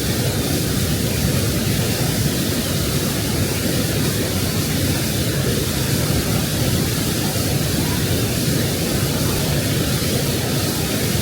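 Waterfall water rushing steadily: a loud, unbroken wash of falling water with no pauses or changes.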